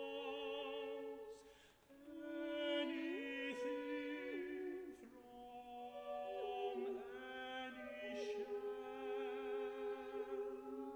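Voices singing a slow classical vocal setting of a poem in several parts. They hold long notes that move in steps, with vibrato on the higher line and a few hissed 's' consonants.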